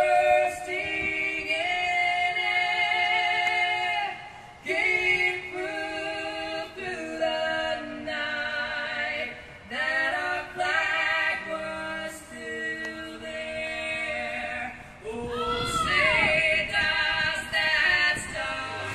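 A woman singing unaccompanied, a slow melody with long held notes and vibrato.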